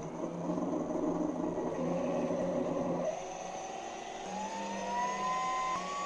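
24-volt DC motor starting up on a speed controller and spinning a second motor through a magnetic coupling, with a steady high-pitched whine. About four seconds in, a whine rises in pitch as the speed is turned up.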